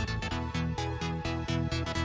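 Electronic background music with a steady driving beat.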